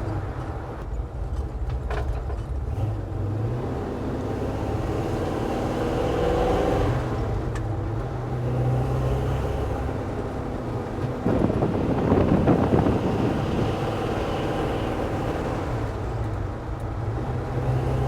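383 stroker small-block V8 in a 1966 Chevy C10 pickup, heard from inside the cab while the truck is driven, with a steady low engine drone and road noise. The engine note shifts in pitch as the truck changes speed, and grows louder for a couple of seconds about eleven seconds in.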